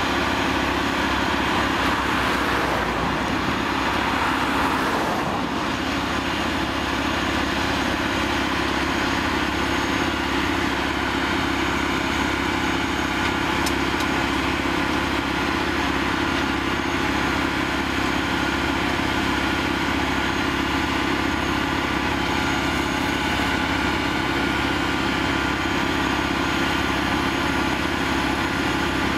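The mobile rail-welding machine's engine running steadily at a constant drone, with a rushing hiss rising over it for a few seconds near the start.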